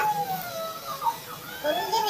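A child's drawn-out voice in the background, sliding slowly down in pitch, then rising again near the end.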